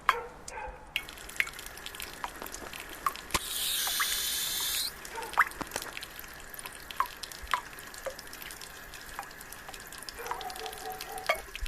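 Water dripping in irregular plinks, with a loud hiss for about a second and a half starting about three and a half seconds in, and a short hum near the end.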